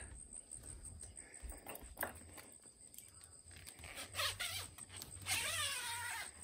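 Zipper on a canvas safari tent wall being pulled, with a long rasping zip starting about five seconds in after a few shorter scrapes and clicks.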